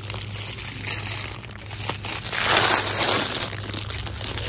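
Cellophane bags of plastic Easter basket grass crinkling as they are handled and pulled from a wire shelf bin, loudest about two and a half seconds in.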